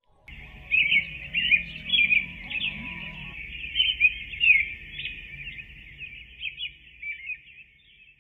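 Birds chirping and twittering, many quick overlapping chirps, over a faint low rumble; the chirping cuts off suddenly near the end.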